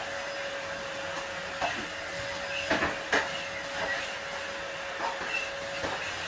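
Steady machine-like hiss with a faint constant tone, and a few light clicks and knocks from a spatula spreading whipped-cream frosting on a cake, clustered around the middle.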